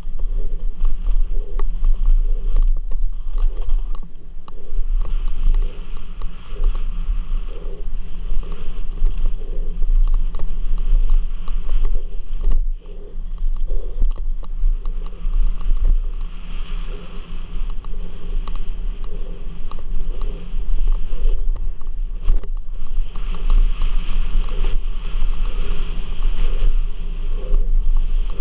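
Downhill mountain bike running fast over a dirt trail, heard from a helmet camera: wind buffets the microphone while the tyres roll over the dirt and the bike rattles, with occasional sharp knocks over bumps.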